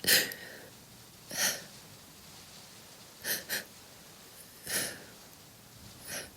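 A woman sniffling and taking shaky breaths as she holds back tears: six short sniffs, the first the loudest, with two in quick succession about halfway through.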